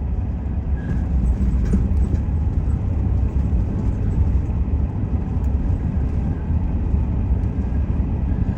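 Steady low rumble of a Chevrolet pickup truck driving on a snowy road, engine and tyre noise heard inside the cab.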